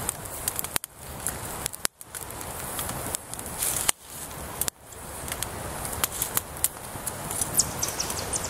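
Small wood fire of burning kindling and feather sticks, crackling with many sharp irregular pops and snaps over a steady hiss. The sound drops out briefly a few times in the first half.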